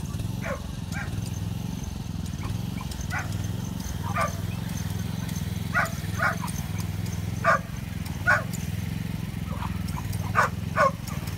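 A dog barking and yelping in short, sharp single barks, some in quick pairs, about ten in all, over a steady low hum.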